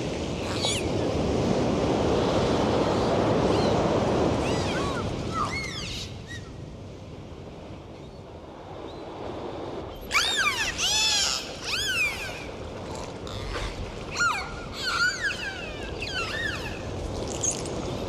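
Dolphins whistling underwater: many short whistles that rise and fall in pitch, thickest from about ten seconds in, with scattered clicks. A loud rushing water noise fills the first few seconds.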